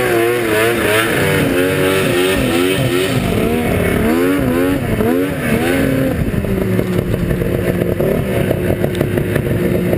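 Yamaha V-Max 700 SX snowmobile's three-cylinder two-stroke engine revving hard under load while climbing through powder, its pitch rising and falling quickly with the throttle; after about six seconds it settles to a steadier, lower note as the sled crests and runs across the top.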